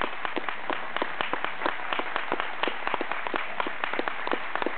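Audience applauding, with many separate hand claps heard in a dense, uneven patter.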